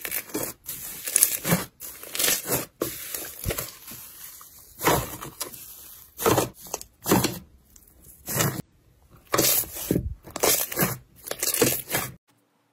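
Thick yellow slime being squeezed, stretched and kneaded by hand, making a run of short, noisy squishes, one or two a second. They stop shortly before the end.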